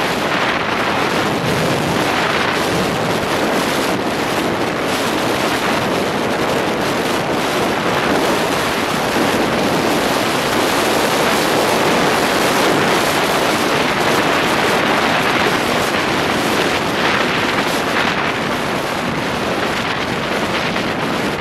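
Steady road and wind noise of a car driving at highway speed, an even rushing hiss without breaks, easing slightly near the end.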